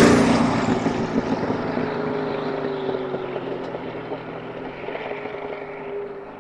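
Mazzanti Evantra Millecavalli's twin-turbo V8 going past loudly right at the start, then a steady engine drone that fades away as the car drives off.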